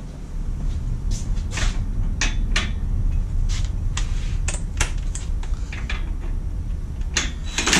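Metal clicks and clacks of tools and parts being handled at an engine stand, over a low rumble, as a cordless impact wrench is set on the mounting bolts. Right at the end the impact wrench starts hammering.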